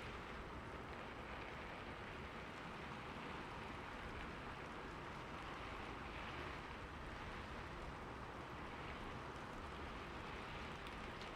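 Steady rain falling, an even hiss of drops with a few faint individual drop ticks.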